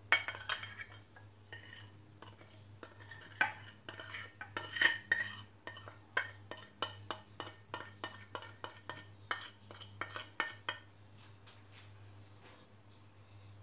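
Metal spoon scraping ground spices off a ceramic plate and clinking against a stainless steel bowl: a quick run of scrapes and clinks that thins out near the end.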